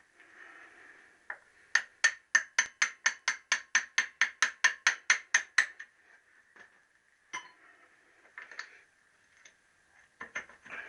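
Hammer driving out a Triumph T120R engine mounting bolt: a quick, even run of about sixteen sharp metallic taps, roughly four a second, followed by a few scattered metal clinks.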